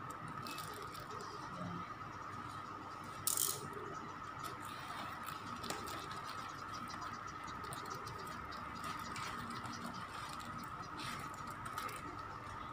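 Paper packing wrapped around a potted plant rustling and crinkling as it is handled and pulled away, with one sharper, louder crackle about three seconds in. A steady faint tone runs underneath.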